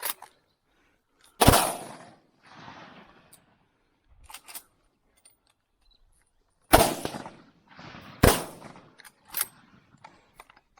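Three loud shotgun shots: one about a second and a half in, then two more near the end about a second and a half apart. Each shot trails off in a short echo.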